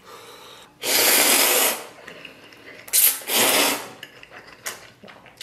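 Noodles being slurped: two long, loud slurps, the first about a second in and the second about two seconds later, with faint chewing clicks between them.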